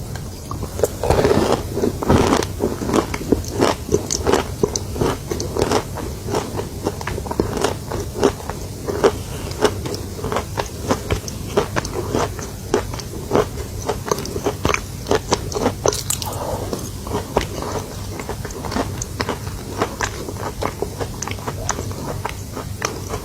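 Close-up chewing of chalk, a run of crisp, irregular crunches and crackles, with a few louder bites near the start.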